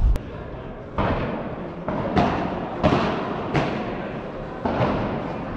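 Padel ball hit back and forth with padel rackets in a fast volley rally: a string of sharp pops, about five in all and some under a second apart, each echoing in the large indoor hall.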